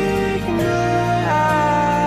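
Instrumental background music: sustained notes that step to new pitches about every half-second to second.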